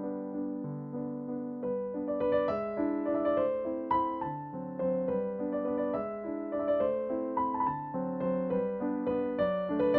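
Background music: a gentle piano melody over slow low chords, with quicker, higher notes joining about two seconds in.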